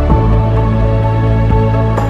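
Background music: a slow instrumental of held chords, with the chord changing just after the start.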